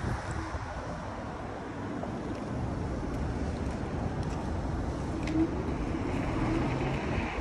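Steady rumbling noise of vehicles and wind, with a faint held tone appearing about five seconds in.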